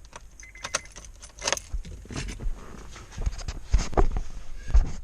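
A bunch of car keys jangling and clicking as they are handled, with irregular metallic rattles throughout and a short run of high beeps from the car about half a second in.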